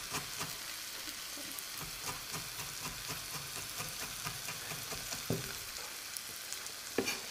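Chef's knife chopping celery on a wooden chopping board in quick, light taps, over the steady sizzle of vegetables frying in a pan.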